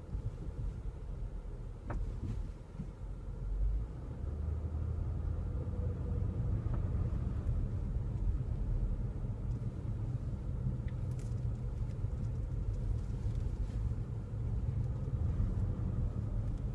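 2015 Nissan Murano driving slowly, a steady low road rumble, with one sharp tap about two seconds in and a few faint ticks later. The tap is the kind of intermittent popping or tapping from the rear that the car makes over bumps at low speed, for which the owner has found no cause.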